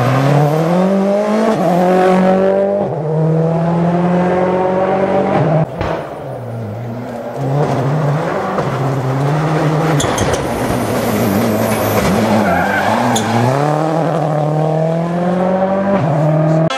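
Rally cars' engines revving hard as the cars accelerate past, the pitch climbing through each gear and dropping at each gear change. The sound breaks off suddenly about six seconds in, and another car's run follows.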